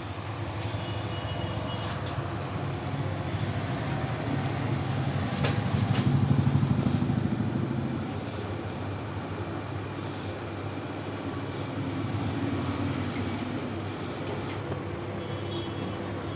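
A nearby motor vehicle's engine running, swelling louder about six seconds in and easing off a couple of seconds later.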